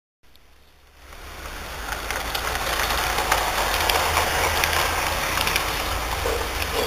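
LGB garden-scale model train, an electric locomotive pulling two coaches, running along the track: a steady running noise with a low hum and scattered clicks from the wheels on the rails, growing louder about a second in as it comes by.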